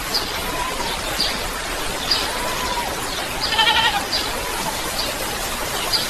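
Steady rain hiss with an animal calling through it: a short high call about once a second, and one longer wavering call a little past the middle.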